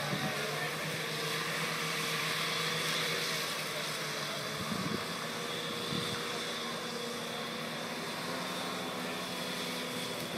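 Off-road 4x4's engine running steadily under load as it drives up a muddy track, a continuous drone that dips slightly in pitch in the second half.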